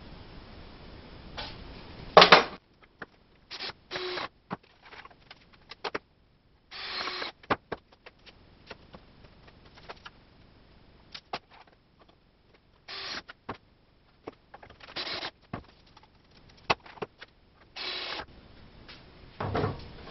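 Scattered handling noises: knocks, clicks and short scraping or ratcheting bursts as a one-handed bar clamp is fitted and squeezed tight on a 2x4 wooden frame. The loudest is a sharp knock about two seconds in.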